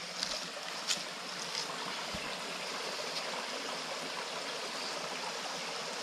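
Shallow stream trickling over rocks: a steady rush of running water, with a couple of short clicks within the first second.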